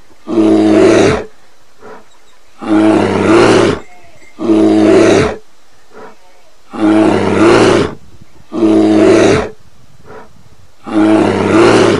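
A bear calling six times: loud calls about a second long each, coming roughly every two seconds, with faint background noise between them.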